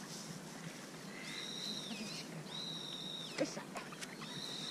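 A bird's high whistled call: three long, steady notes of about a second each, each rising in and falling off at the end. A brief click about three and a half seconds in.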